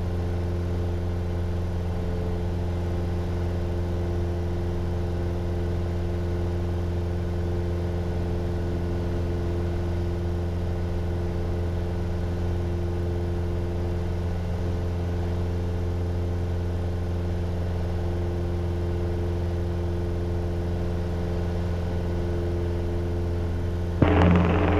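Piper Warrior's four-cylinder Lycoming engine and propeller droning steadily at climb power after takeoff, heard inside the cabin.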